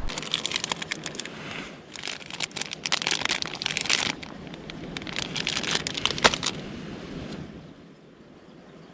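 Crinkling, crackly rustle of thin sheet material being handled or shaken, in several bursts over the first six or so seconds, then dying away to a low hiss.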